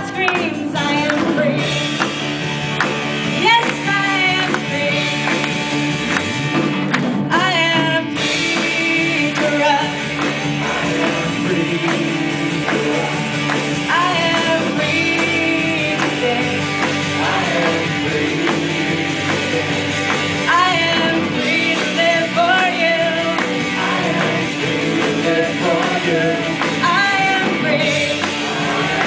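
Live worship band playing an upbeat song: a woman sings the lead over drum kit, electric bass and guitars, with a second singer joining in.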